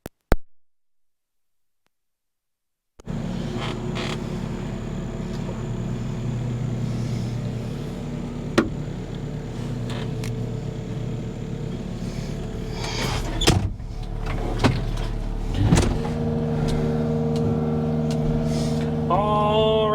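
An engine starts sounding about three seconds in and runs steadily, with a few sharp clicks and creaks. Its tones shift about three-quarters of the way through, and falling whines come in near the end.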